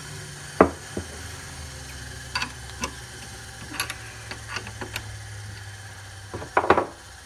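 Light clicks and knocks of a rough-cut spalted maple bangle ring being handled and worked loose from the metal jaws of a four-jaw chuck on a mini lathe, with one sharp knock about half a second in and a louder clatter near the end, over a steady low hum.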